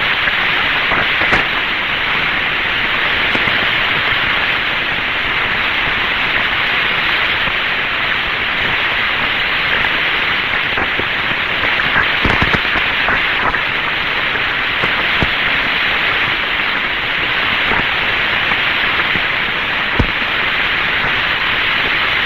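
Steady radio static hiss on a 1962 Mercury capsule communications recording, with a few faint clicks.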